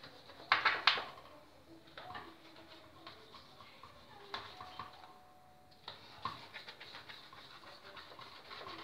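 Knife cutting through baked börek in a metal baking tray, the blade clinking and scraping against the tray, with two sharp clinks within the first second and fainter ones after.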